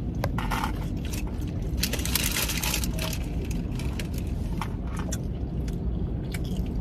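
Food and its paper wrapping being handled while eating: rustling, crinkling and small clicks, thickest about two to three seconds in, over a steady low hum inside the car.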